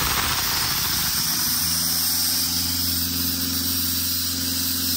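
Compressed air rushing out of an open discharge valve on an Elgi PG 200 diesel portable air compressor, a loud steady hiss, over the compressor's diesel engine running. The engine note settles into a steadier hum about a second and a half in.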